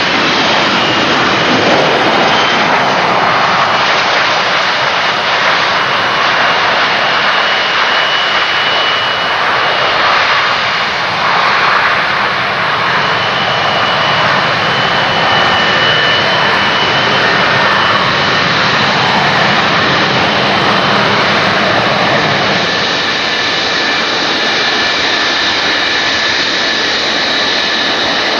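Pratt & Whitney JT8D turbofans of Boeing 727 and 737 airliners running while the aircraft move on the ground. The jet noise is loud and steady, with a high, steady whine over it.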